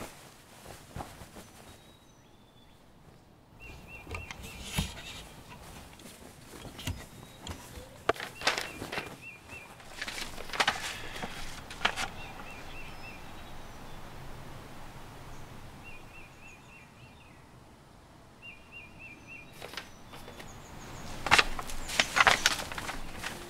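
Rustling and handling noises of papers, in scattered bursts, loudest and busiest near the end. Behind them, in a quiet background, short high chirping trills come every few seconds.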